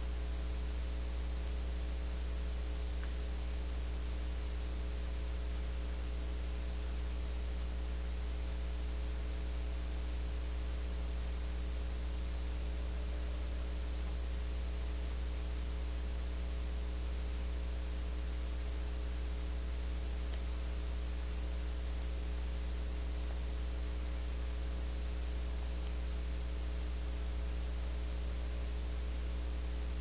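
Steady electrical mains hum picked up by the nest-box camera's audio: a constant low drone with a few fixed higher tones over an even hiss.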